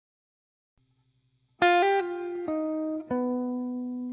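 Silence, then background music starts about a second and a half in: a slow melody of single plucked notes, each ringing out and fading.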